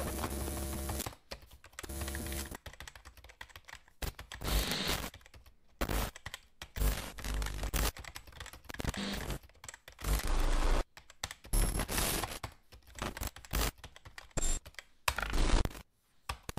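Computer keyboard typing in irregular bursts, with a buzzing tone in the first two seconds.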